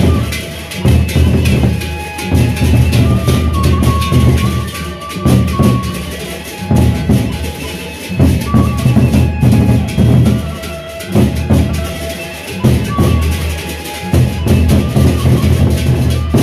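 Sasak gendang beleq ensemble playing: large barrel drums beaten with sticks in heavy, repeated surging phrases every second or two, with a melodic line and dense high ticking over the drumming.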